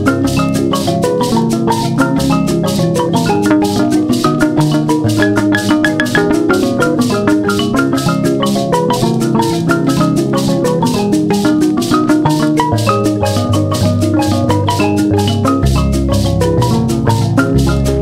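Instrumental background music: a mallet-percussion melody, like a marimba, over a fast, even shaker-like beat, with a deeper bass coming in near the end.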